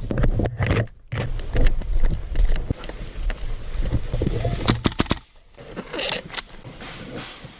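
Body-worn camera noise: a heavy low rumble of wind and movement on the microphone, with scattered sharp clicks and knocks. The rumble drops out abruptly about a second in and again about five seconds in.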